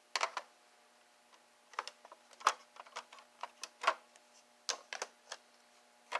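Irregular light clicks and taps of a Lionel toy trolley being handled and turned to show its end, over a faint steady hum.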